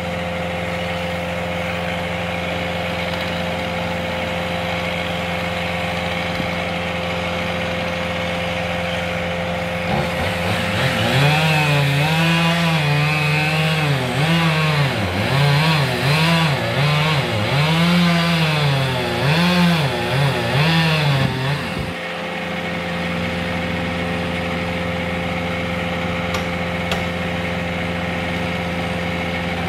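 A steady engine hum runs throughout. From about ten seconds in until about twenty-two seconds, a chainsaw cuts into a tree trunk, its pitch rising and dropping in repeated surges as it revs and bogs in the wood.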